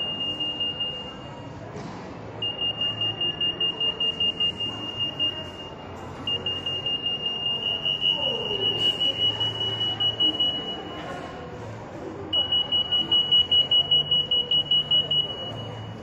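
RF 8.2 MHz EAS anti-theft gate alarm beeping fast on one high tone, about four or five beeps a second, set off by a security hard tag carried through the antennas. It goes off in four stretches of a few seconds each, with short pauses between.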